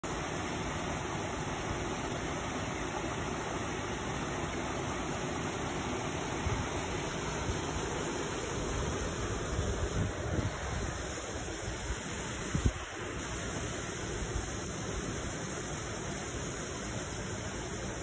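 Water pouring over a small stone weir into a stream channel, a steady rushing. A few dull thumps stand out around the middle.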